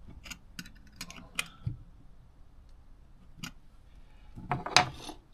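Scattered light clicks and taps of small tools and carburettor parts being handled during jet work on a PH61A carburettor, with a louder cluster of knocks near the end.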